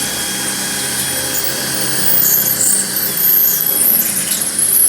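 Cordless drill running under load, boring through sheet-metal siding into a masonry wall; the drilling grows louder about two seconds in.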